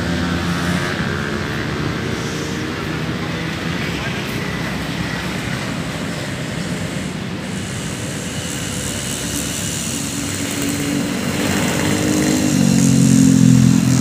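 Road traffic: motorcycle and car engines passing on a city street, with one motorcycle's engine growing louder near the end.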